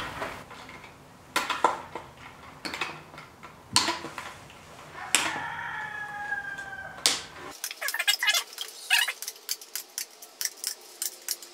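Galvanized chicken wire being unrolled, handled and cut with wire snips: the mesh rattles and clinks, then a quick run of sharp snips at about four a second in the last few seconds. A rooster crows once in the background about halfway through.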